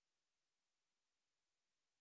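Near silence: only a very faint, even hiss.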